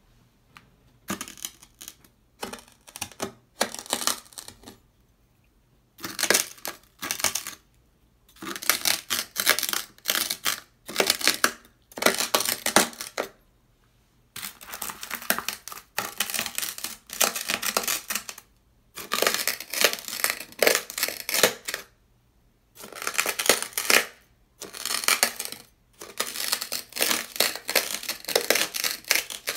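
Dry beach sand crunching loudly as a metal tool presses and drags through it on sandpaper. The crunching comes in repeated strokes, each lasting from about a second to a few seconds, with brief silences between them.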